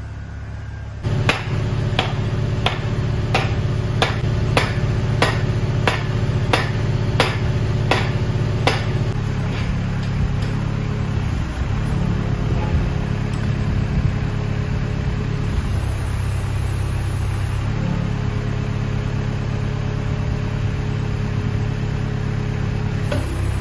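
Kubota loader's engine running steadily while the loader arms are worked on the hydraulics, its note shifting a few times under load; over the first several seconds a sharp click repeats about twice a second. No creaking or popping comes from the freshly tack-welded arm bushings, a sign that they are holding and lined up.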